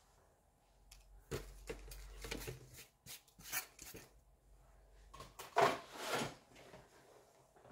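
Rustling, scraping and light knocks of paper and small craft tools being handled on a work table, in a string of short irregular bursts with the loudest a little before six seconds in.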